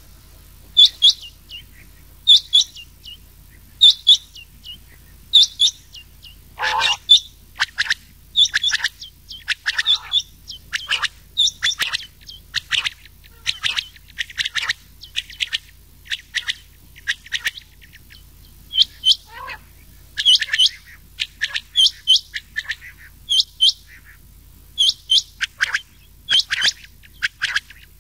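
Recorded rain quail and common quail calls used as a hunting lure: short, sharp, high notes, mostly in pairs, repeating about every second and a half, with more call notes overlapping them from about seven seconds in.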